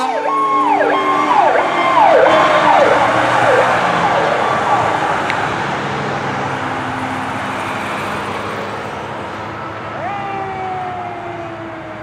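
Fire engine siren sweeping rapidly up and down, roughly once every three-quarters of a second, fading as the truck drives away; about two seconds from the end a single slow, falling wail.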